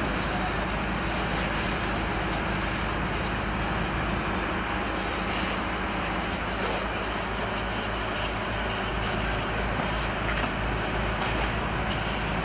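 A fire engine's motor running steadily under the even rush of a large building fire.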